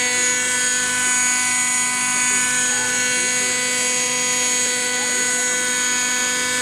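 Radio-controlled model helicopter with a nitro glow-fuel engine, hovering low and running at a steady, unchanging pitch.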